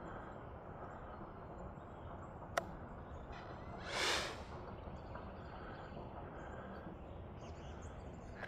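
Faint outdoor background, with a single sharp click about two and a half seconds in and a brief whoosh that swells and fades about four seconds in.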